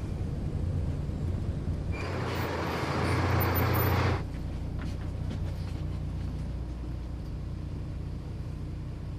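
Bus engine running with a steady low hum. A loud pneumatic air hiss starts about two seconds in, lasts about two seconds and cuts off sharply.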